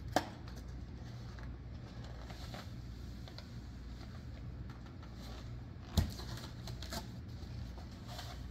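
Salt from a cardboard box pouring softly into a cupped hand as faint scattered ticks, with a sharp click just after the start as the box's metal pour spout is pulled open. A louder knock comes about six seconds in, over a low steady hum.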